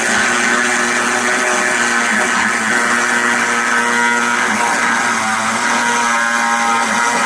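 A power tool running steadily and loudly with a constant motor pitch, as used in cutting and grinding car body panels.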